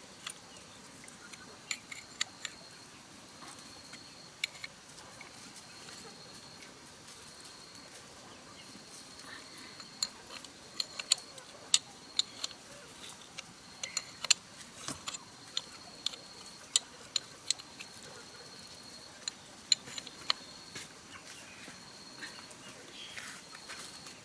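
Scattered sharp clicks and taps of metal as the brass head of a pressure-washer pump is handled and cleaned, with a steady high insect trill behind.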